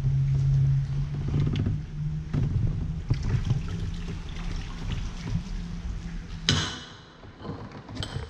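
A low, steady engine drone that fades away over several seconds, with small knocks over it. About six and a half seconds in comes one sudden sharp knock or splash.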